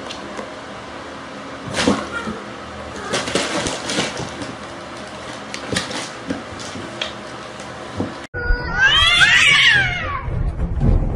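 Cats yowling at each other: a loud, wavering caterwaul of several overlapping calls lasting about two seconds, near the end. Before it, light thumps and scuffles of two cats tussling on a wooden floor.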